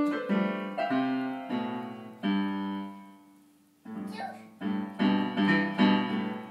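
Upright piano played by a small child: a string of struck notes and chords, each left to ring and fade, with a pause of about a second in the middle. The child is making up a tune, pressing keys at random rather than playing a learned piece.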